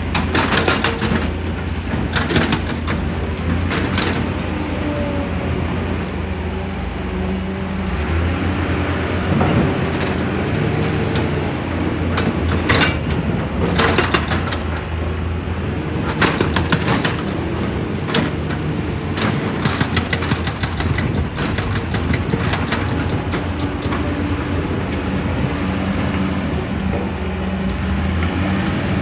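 Heavy diesel excavator engine running steadily, with irregular sharp clanks and cracks of rock being struck and broken, some coming in quick clusters.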